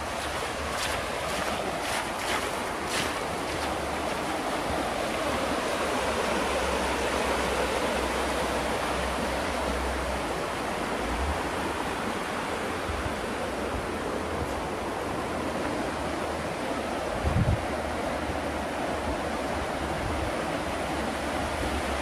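Steady rush of the Housatonic River running over rocks in shallow rapids, with wind buffeting the microphone. A few footsteps in the first three seconds.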